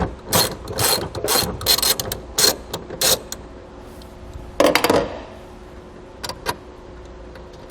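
Socket ratchet with a 10 mm socket clicking in quick runs as it backs out a bolt. A short louder clatter just before the halfway point is followed by a few faint ticks.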